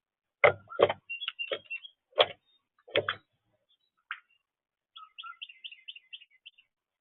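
Small birds chirping with several sharp knocks in the first three seconds, about five in all. Near the end comes a quick run of about seven short, high chirps.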